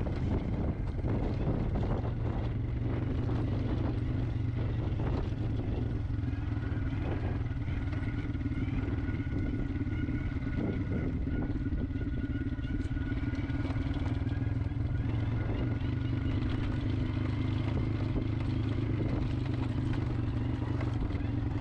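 An engine running steadily at an even speed, with a steady hum and scattered clatter and knocks over it.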